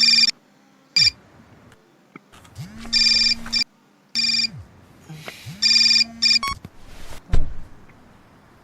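Electronic alarm ringtone going off in repeated short bursts of steady beeping tones, with gaps between the bursts. About seven seconds in, one short loud thud.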